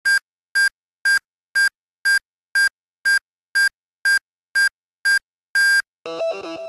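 Electronic countdown-timer beeps: twelve short high beeps, about two a second, the last held a little longer. Near the end, music with electric guitar starts.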